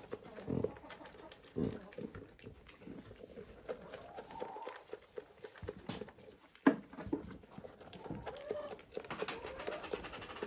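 Barn animals give short calls amid rustling and small knocks; one call rises in pitch about four seconds in. A single sharp knock comes a little past the middle.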